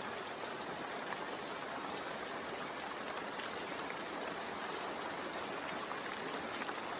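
Steady rain sound with faint drop ticks, an even hiss.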